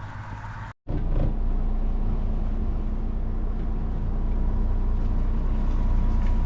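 Boat engine running steadily under way, a low drone with a faint constant tone on top. It starts after a brief gap just under a second in.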